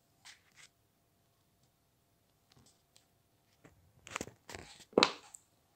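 Handling noises: brief rustles and light clacks of small plastic toy figures being moved and set down on a tabletop, a couple near the start and a busier run in the second half, the loudest about five seconds in.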